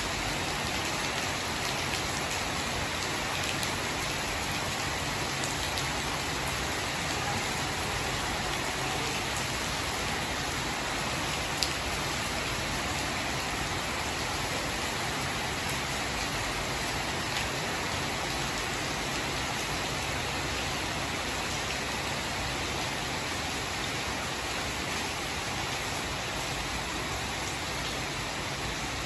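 Torrential rain pouring steadily onto garden foliage and a wet tiled patio, an even, unbroken hiss. One sharp click stands out about twelve seconds in.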